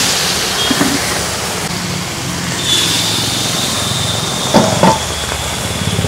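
Quail pieces deep-frying in mustard oil in an iron kadhai: a loud, steady sizzle that brightens as fresh pieces go into the oil at the start. A thin, steady high whistle-like tone joins about halfway through.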